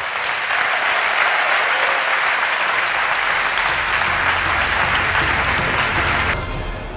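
Large audience applauding, a dense steady clapping that cuts off abruptly about six seconds in.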